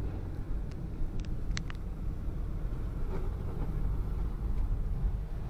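Steady low road and engine rumble inside a moving car's cabin, with a few short clicks about a second and a half in.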